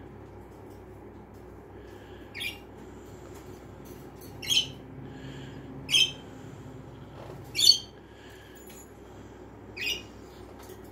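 Pineapple green-cheeked conure giving five short, sharp chirps, spaced about one and a half to two seconds apart. The fourth chirp is the loudest.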